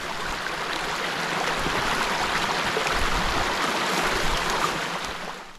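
A steady rushing noise that swells slightly and then falls away quickly near the end.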